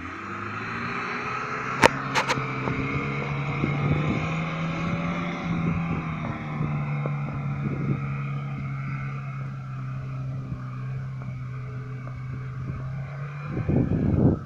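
Stock 1986 Lada Niva's four-cylinder petrol engine pulling steadily as the car drives on sand, a constant drone with a whine that slowly rises and falls. Two sharp clicks come about two seconds in, and a burst of knocks and bangs comes near the end.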